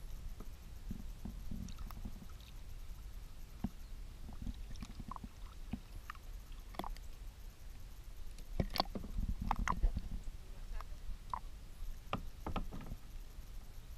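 Kayak paddling close to the water: water lapping and sloshing against the hull, with paddle drips, small plops and the odd knock of the paddle. There is a low rumble throughout, and the splashes are busiest a little past the middle.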